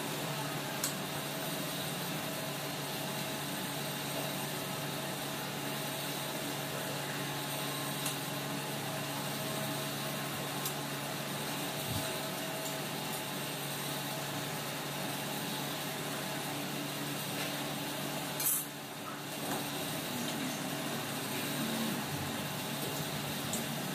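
A steady machine hum with a few short, sharp knocks of a kitchen knife on a granite counter as a whole chicken is cut into pieces; the loudest knock comes late.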